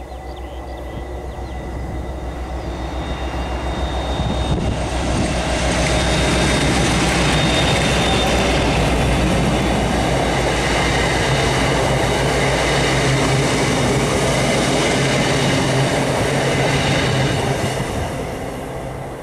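Greater Anglia Class 321 electric unit being hauled past at speed by a locomotive, its wheels running on the rails. The rumble builds over the first few seconds, holds steady for about ten seconds with some clickety-clack, then fades near the end.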